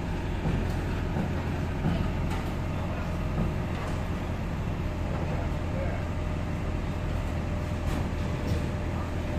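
Forklift engine idling steadily, with a few short knocks and clanks from the work in the container.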